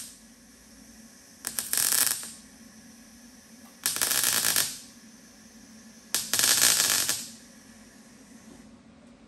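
Welder striking three short tack welds on sheet-metal roof structure, each lasting under a second and spaced about two seconds apart.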